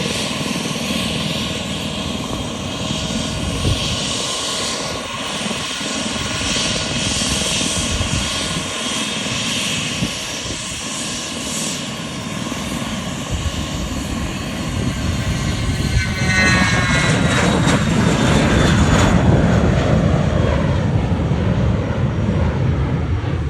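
Cessna Citation Latitude business jet's twin turbofan engines running with a high whine on departure, growing louder about two-thirds of the way through as the whine falls in pitch.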